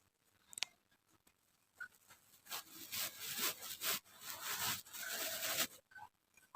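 Kinetic sand being worked, giving a gritty rubbing sound in a run of overlapping strokes that lasts about three seconds, after a short click about half a second in.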